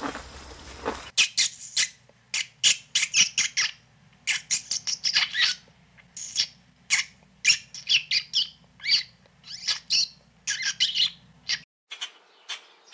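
High, squeaky animal chirps in quick clusters, many short calls a second, starting about a second in and falling away near the end.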